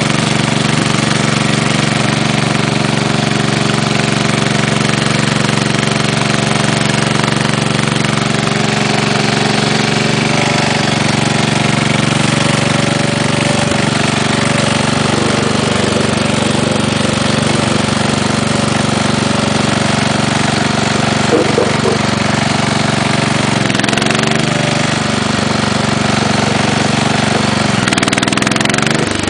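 Case 444 garden tractor's engine running steadily, with the knock that the owner takes for piston slap. Its speed shifts briefly near the end.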